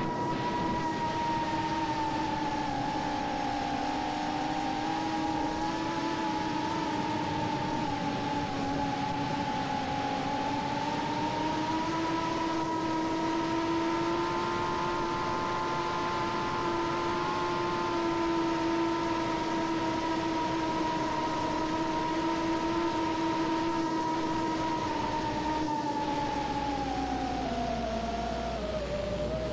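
A 3-inch FPV quadcopter's brushless motors and propellers whine steadily while the flight controller flies it home in GPS Rescue mode. The pitch drifts slowly up and down and falls away near the end.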